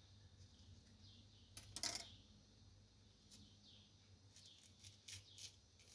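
Faint knife cuts into lemon peel: a few short, sharp scraping clicks, the loudest about two seconds in and a small cluster more near the end, over near silence.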